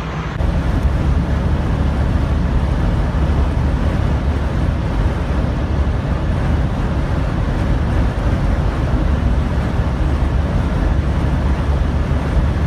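Steady low drone of a semi truck's diesel engine together with road noise, heard inside the cab while cruising at highway speed.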